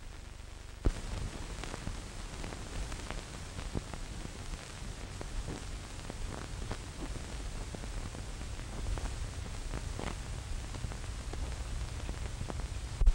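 Surface noise of an old 16mm film's optical soundtrack with no programme sound on it: a steady hiss and low hum, crackling with scattered clicks and pops. The noise steps up with a sharp click about a second in.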